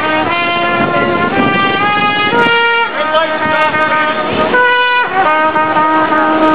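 Music: a melody of held notes, each lasting roughly half a second to a second, with a rough noisy haze underneath.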